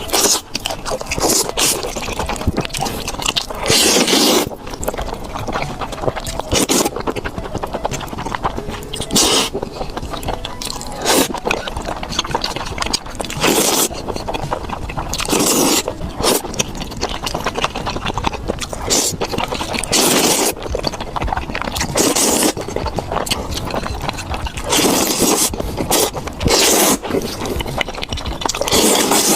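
Close-miked eating sounds: chewing and biting food, with loud, wet bursts every second or two.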